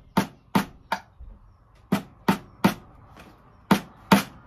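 Claw hammer striking a small nail into a wooden workbench: eight sharp blows in quick sets of three, three and two, with short pauses between the sets.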